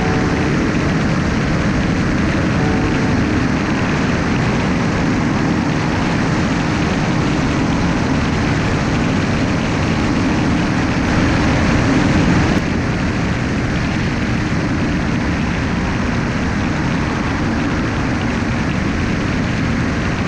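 Light aircraft in cruise flight heard from a wing-mounted camera: steady engine drone and rushing airflow over the microphone. It swells slightly a little past the midpoint and drops back abruptly.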